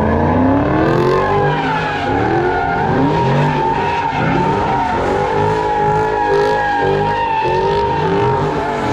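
Drift car doing donuts: tyres squealing in one steady, sustained screech while the engine revs rise and fall over and over as the throttle is worked.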